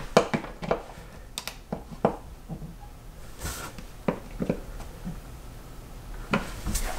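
Hands adjusting the screws of a plastic wall outlet cover plate, turning them until the slots sit horizontal: scattered small clicks and scrapes, with a short rubbing sound near the middle.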